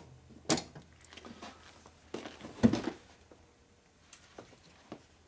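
Knocks and rattles of parts and small bottles being handled on a steel workbench and shelf: a sharp knock about half a second in, a louder clatter between two and three seconds in, then a few light ticks.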